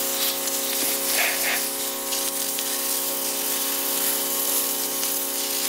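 Pressure washer running, its jet hissing against a whole mutton snapper to knock the scales off, over a steady pump hum.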